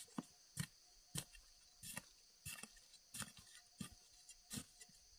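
Irregular series of short knocks, about two a second, from a hand spade striking and working loose soil while digging up June beetles. A steady high-pitched insect drone runs underneath.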